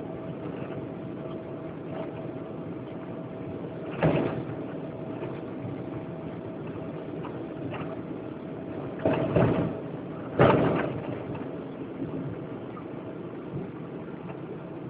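Boeing 777-200ER airliner cabin noise: a steady rumble with a steady hum, broken by four sharp thuds, one about four seconds in, two close together after about nine seconds and one after about ten and a half.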